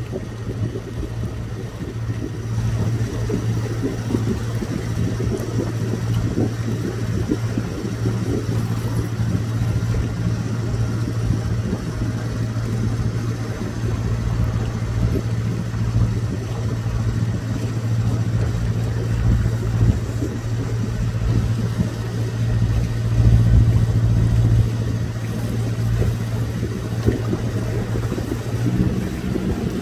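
Motor boat's engine running steadily while cruising, an even low drone heard from on board.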